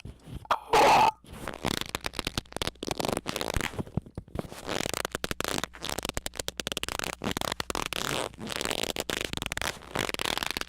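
A harsh, irregular crackling rattle of rapid clicks, after a short loud burst about half a second in.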